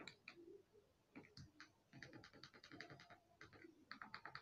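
Faint typing: quick runs of small clicks, about eight to ten a second, in a burst about two seconds in and another near the end, with a few scattered clicks between.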